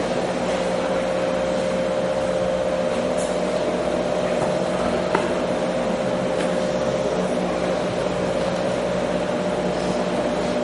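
A steady hum and hiss with a held tone, like a fan or an amplifier's drone, and one faint click about five seconds in.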